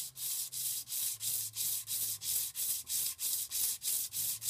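Strip of abrasive cloth pulled back and forth around a Kohler K341 crankshaft journal, polishing it shoeshine-style: a rhythmic rasping hiss, about three strokes a second.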